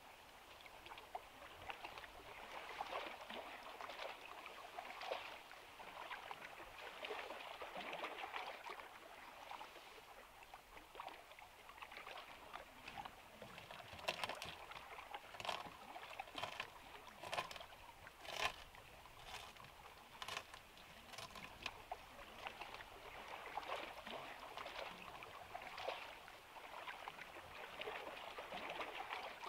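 Water lapping steadily in the background. About halfway through comes a run of sharp clicks from a knife cutting through a flatbread pizza topped with crispy potato sticks on a wooden board.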